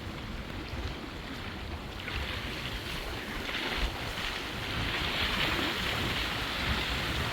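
Choppy river waves splashing, driven by a strong gale, with wind rumbling on the microphone. The splashing swells louder from about two seconds in.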